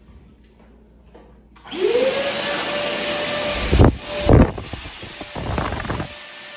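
WAP GTW 10 wet/dry vacuum cleaner switching on about a second and a half in: its motor whine rises quickly to a steady high pitch over a loud rush of air. About two seconds later two loud thumps of air hit the microphone as the hose nozzle is pointed at it, and the motor then runs on more quietly.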